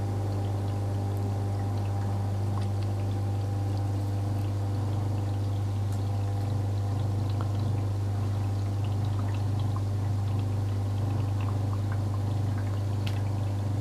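Cookology mini portable countertop dishwasher filling from its onboard water tank: a steady low machine hum with water pouring into the tub. The hum cuts off suddenly at the very end as the fill stops.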